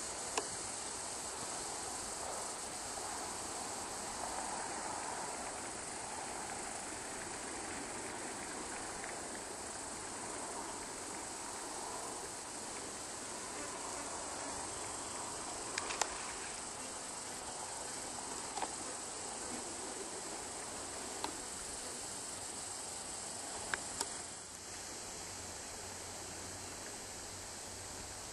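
Steady outdoor ambience: a continuous high hiss with no words, broken by a few brief clicks, and slightly quieter near the end.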